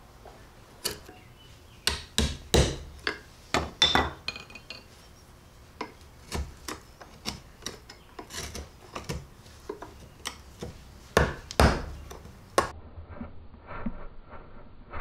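A wood chisel chopping and paring waste out of a drilled mortise: irregular sharp knocks of steel on wood mixed with scraping of chips, coming in clusters, with the two loudest knocks close together about three-quarters of the way through.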